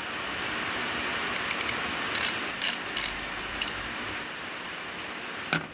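Steady rain, with a few light clicks between about one and four seconds in.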